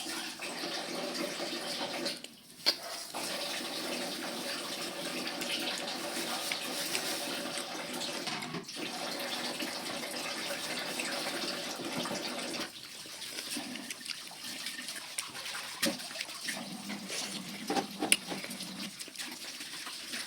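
Water running steadily from a tap, breaking off briefly about two seconds in and running quieter from about thirteen seconds, with a few small knocks.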